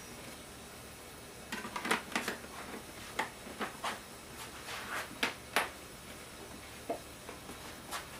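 A string of light clicks and knocks, about a dozen in a few seconds and then a few more near the end, as a plastic motor-oil jug is handled at a workbench.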